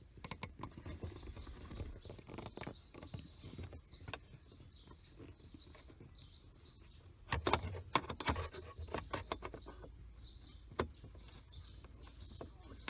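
Clicks, taps and rattles of hand tools undoing a nut and handling loose trim parts, with a louder run of knocks about seven to eight seconds in. Birds chirp faintly in the background.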